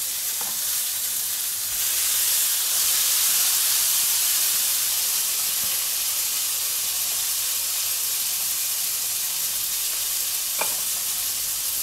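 Steady sizzle of a mixed-mince burger patty frying in clarified butter in a pan, growing somewhat louder about two seconds in. A short light knock near the end.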